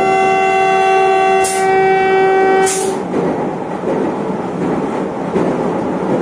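Train horn sounding one long steady blast, with two brief hisses over it, that stops about three seconds in. The train then runs on with a steady rumble.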